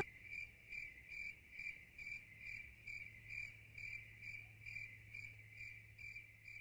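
Cricket chirping sound effect, a faint, even chirp a little more than twice a second over a low hum: the comic 'crickets' cue for an awkward silence when nobody answers.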